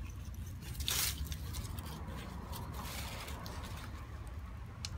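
Dry leaves rustling and scraping as a dog noses and paws through them, with one louder scrape about a second in. A low rumble runs underneath.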